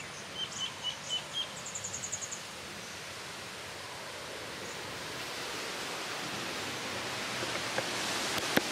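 Outdoor ambience: a few short high chirps in the first two seconds, then a steady rushing hiss that slowly grows louder, and one sharp click near the end.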